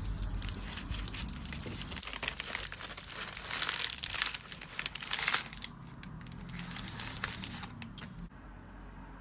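Crinkling and rustling of handled packaging, with many small crackles, heaviest in the middle and stopping abruptly near the end.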